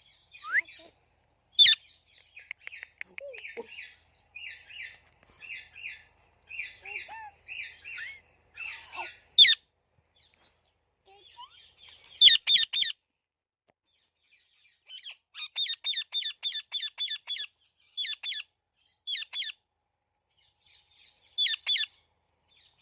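Parrot chirping: a string of short chirps and whistles with a few sharp, loud squeaks, and, past the middle, a quick run of about ten chirps at roughly four a second.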